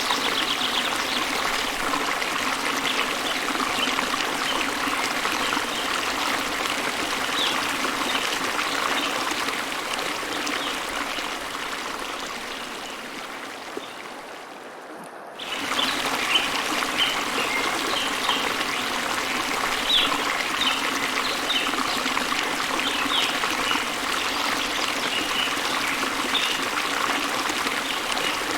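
Stream water trickling and babbling steadily. Partway through, the sound fades down over a few seconds and then cuts back in abruptly at full level.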